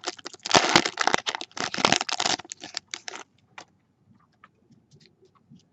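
Foil trading-card pack wrapper and cards being handled: a quick run of crinkling and clicking that thins to a few scattered ticks about three seconds in, then goes nearly quiet.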